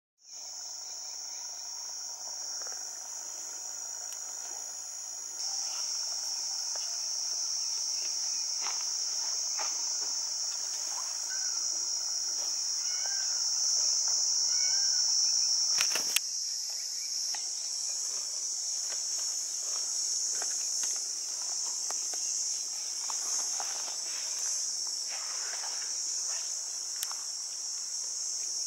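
Insects shrilling in a steady, high-pitched chorus that gets a little louder a few seconds in. Faint scattered ticks are heard, with one sharper click about sixteen seconds in.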